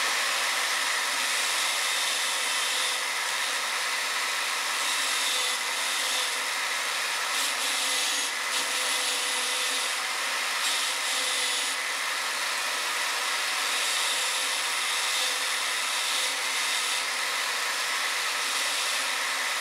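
Wire wheel brush spinning in a drill press, scrubbing a steel part of a vintage Stanley No. 3 bench plane held against it to clean it: a loud, steady, harsh whir.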